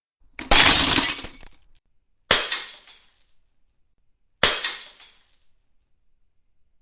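Glass breaking three separate times, each a sudden smash trailing off into shards settling. The first, about half a second in, is the longest at roughly a second. The next two, a couple of seconds apart, open with a sharper crack.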